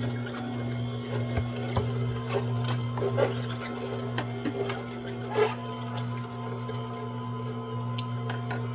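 Horizontal slow (masticating) juicer's motor running with a steady low hum as its auger grinds orange pieces, with scattered crackles and pops of the fruit being crushed.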